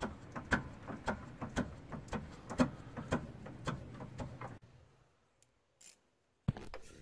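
Faint, steady clicking, about two clicks a second with lighter ticks between, as a Pontiac Trans Am's pop-up headlight motor is turned by hand with a tool on its 6mm Allen head to open the headlight. The clicking stops about four and a half seconds in, followed by a single click near the end.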